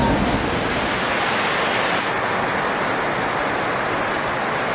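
Steady, even rushing noise of a railway station platform's background ambience, with no distinct events.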